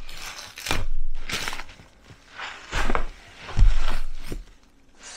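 Thin clear plastic wrapping crinkling and rustling in several bursts as it is pulled off raw pork butts, with a few dull thumps from handling the meat on the counter.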